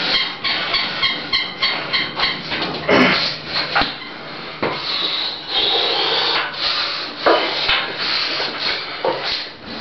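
A man breathing hard after a set of weighted dips: quick rasping pants at first, then a few longer, heavier exhales, with a couple of sharp knocks.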